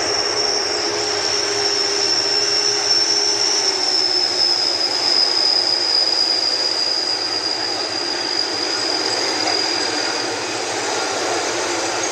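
Jet engines of a Batik Air Airbus A320 running with a high, steady whine over a broad rushing noise; the whine drops slightly in pitch about four seconds in.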